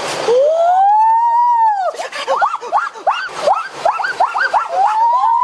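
High-pitched, voice-like wails sliding up and down. A long rising-then-falling wail comes first, then a fast string of short chirpy glides, and a second long wail near the end.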